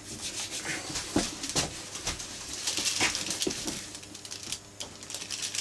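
Small brush scrubbing cream into the seams and recesses of a dry leather case, in short, irregular strokes of bristle rasping on leather.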